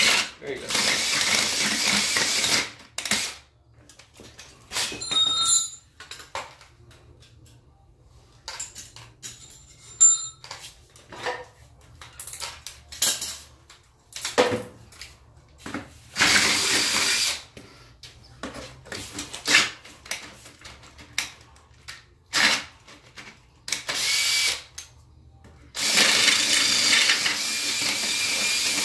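Cordless drill boring holes in a metal differential mounting bracket, running in several bursts of one to three seconds with pauses between, the longest near the start and near the end, with scattered clicks and knocks of handling between.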